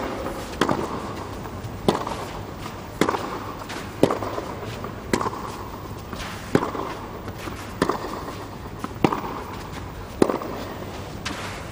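Tennis racket striking the ball in a long baseline rally, about ten sharp hits, roughly one a second, over a low crowd hum.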